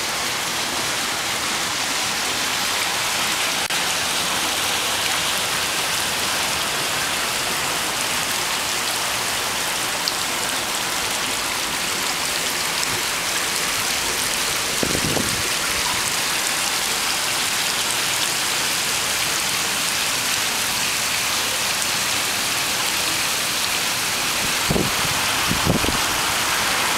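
A steady, even splashing hiss of water running in a thin sheet down the memorial's black granite wall. A few soft low thumps come about halfway through and twice near the end.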